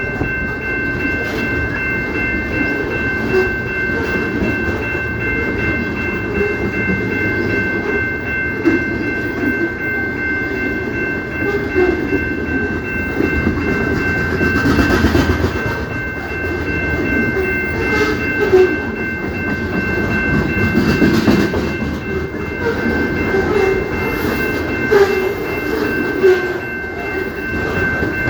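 CP Rail train rolling past, its railcar wheels rumbling and clattering over the rails. A steady high-pitched tone hangs over it, unchanged throughout.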